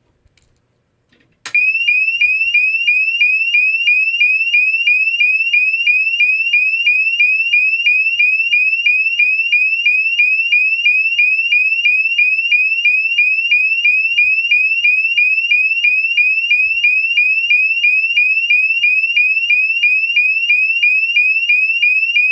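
GE AS363 alarm sounder sounding its 2400 to 2900 Hz sweep tone at a 3 Hz rate: a loud, high tone that rises and snaps back about three times a second. It starts about a second and a half in and repeats steadily.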